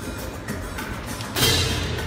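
Live stage-show music with a loud percussion hit about one and a half seconds in, a deep drum stroke with a bright crash that rings and fades.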